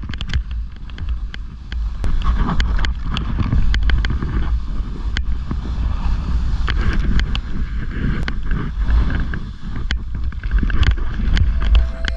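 Snowboard riding down hard-packed snow, the board scraping and chattering, with heavy wind buffeting on the microphone and many sharp clicks scattered throughout.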